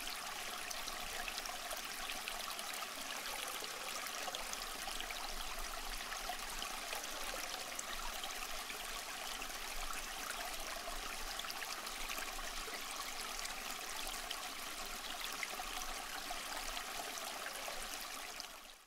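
Steady rushing and babbling of a flowing stream, which fades out just before the end.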